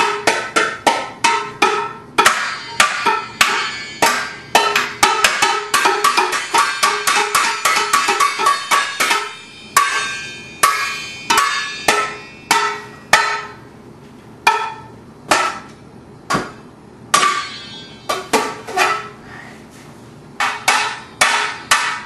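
Metal saucepan lids banged with a kitchen utensil: rapid, ringing clangs, several a second for about the first nine seconds, then slower and more scattered.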